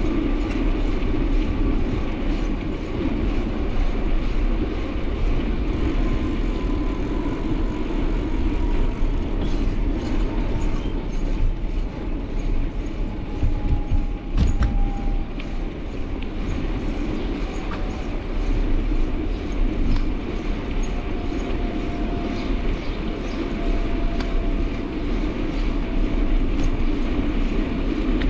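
Steady rumble of a moving vehicle, with a faint whine that falls slowly in pitch and a few sharp knocks near the middle.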